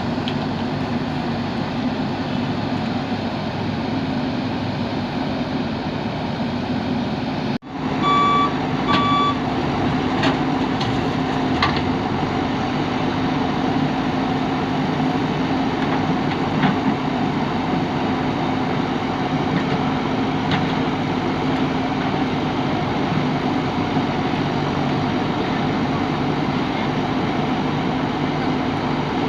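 JCB backhoe loader's diesel engine running steadily under work. About eight seconds in, after a brief dropout, its reversing alarm beeps twice, and a few sharp knocks follow over the next several seconds.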